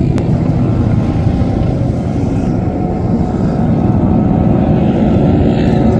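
Several small motorcycle engines running together as a group rides across sand, a steady, dense low engine noise.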